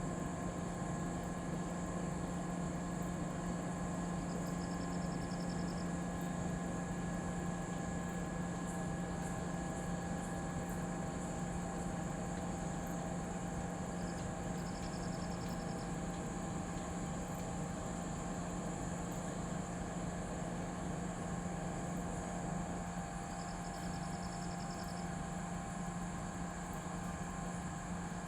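XCMG 500-tonne mobile crane's engine and hydraulics running steadily with a constant low hum and several held tones. A short high trill comes three times, about every nine to ten seconds.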